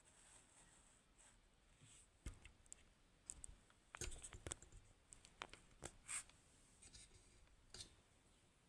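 Faint, scattered small clicks and taps of tiny lock parts being handled, with a quick cluster about four seconds in.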